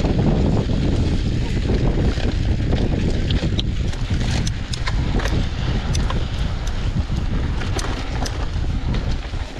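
Wind buffeting the camera's microphone as a mountain bike rolls fast down loose, dusty dirt singletrack, a heavy steady rumble. Scattered sharp ticks and rattles come from the bike and the trail surface.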